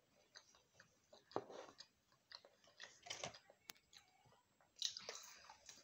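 Faint chewing and eating sounds from two children eating chips and chicken, with scattered small clicks and a few short, louder crunchy bursts.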